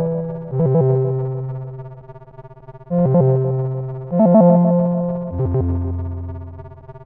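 LG Nexus 5 ringtone playing: soft synthesizer chords in an electric-piano tone over bass notes. Four chords are struck over the few seconds, each left to ring and fade before the next.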